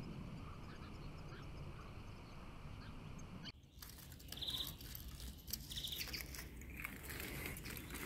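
Faint short chirps of European goldfinches over a low rumble. About halfway the sound changes abruptly, and two brief buzzy trills follow with light clicks and rustles from birds moving in a wooden cage.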